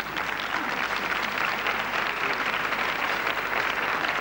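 Studio audience applauding steadily, many hands clapping.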